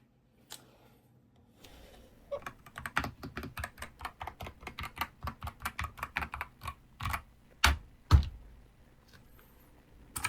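Typing on a Keychron K10 HE magnetic-switch (Hall-effect) keyboard: a fast run of keystrokes starting about two seconds in, then two heavier, louder key strikes near the end.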